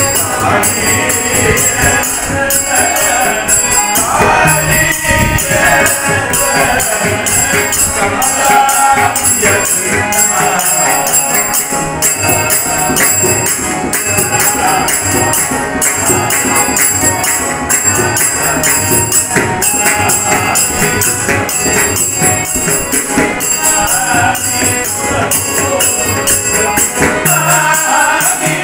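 Group singing of a Hindu devotional bhajan, accompanied by a mridangam drum and steady metallic jingling percussion keeping the beat.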